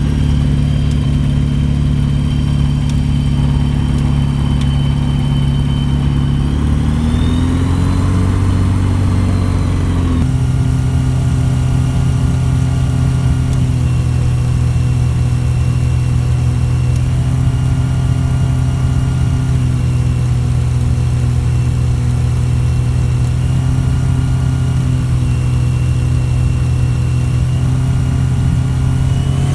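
Rotax piston aircraft engine running steadily, heard from inside the cockpit; about seven seconds in it revs up, holds higher for about three seconds, then settles back to a steady lower speed.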